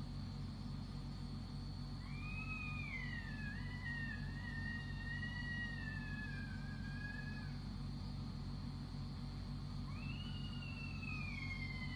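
A long, high, wavering wail lasting about five seconds, sliding up and down in pitch, then a second wail starting about two seconds before the end, over a steady low hum. It is a night-time scream of unknown origin that the uploader cannot tell apart as human or otherworldly.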